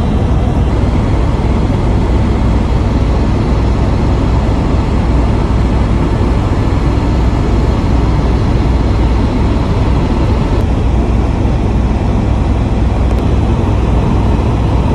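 Helicopter engine and rotor noise, a loud, steady, deep drone with a hiss over it.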